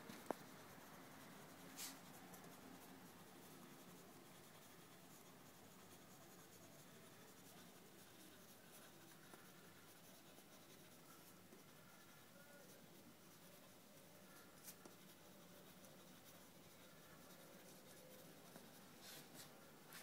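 Faint scratching of a drawing tool on paper, in slow strokes, broken by a few soft clicks or taps.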